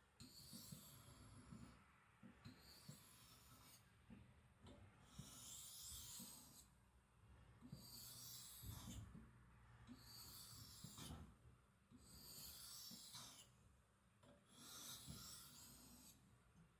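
Faint, regular strokes of a carbon-steel knife blade drawn across a whetstone, a hiss about every two seconds, seven strokes in all, over a low rumble.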